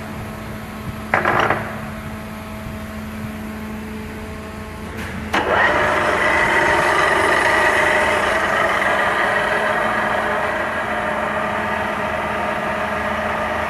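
1967 Niigata 2UMA milling machine under power. A steady electric hum runs throughout, with a short clunk about a second in. About five seconds in a click is followed by the louder, steady whirring whine of the machine's drive starting up and running on.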